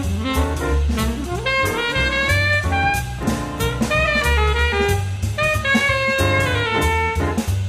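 Background jazz music: a saxophone-like horn melody over bass and drums with a steady beat.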